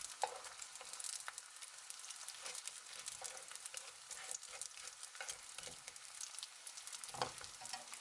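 Food frying in a hot pan, a steady sizzle with many small crackles and pops, and a louder knock about seven seconds in.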